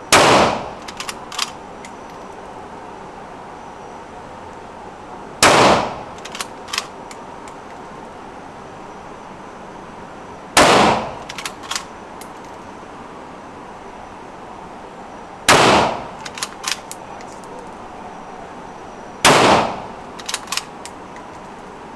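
Rifle fired five times, about five seconds apart, each shot ringing briefly in the indoor range and followed by a few quick metallic clicks.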